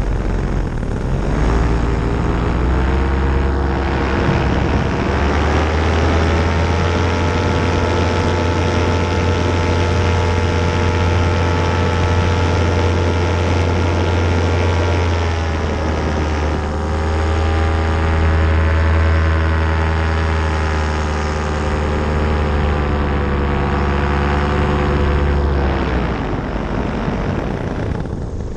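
Paramotor engine and propeller running under power. The pitch climbs a second or two in, dips briefly about halfway through, climbs again, and falls near the end as the throttle is eased back.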